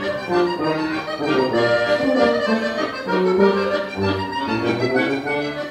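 Instrumental music: a melody of held notes and chords over a low bass line that steps from note to note.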